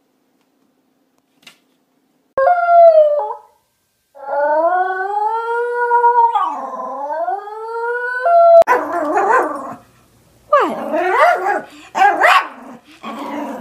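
Near silence for the first two seconds. Then a terrier howls: a short howl, then a long wavering howl that rises and falls for about four seconds. After that a second small terrier gives several short, rough howling barks.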